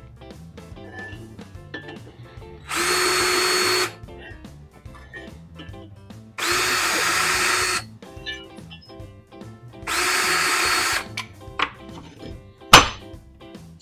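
Power drill run in three short bursts of a steady whine, each over a second long, drilling bolt holes in an aluminum throttle body adapter flange. A sharp metallic knock follows near the end, over background music.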